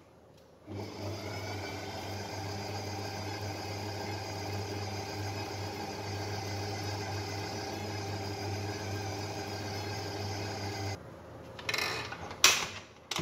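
Electric stand mixer's motor running at a steady speed, its wire balloon whisk beating the milk, eggs and melted butter. It starts about a second in and cuts off near the end, followed by a couple of knocks as the mixer head is tilted up.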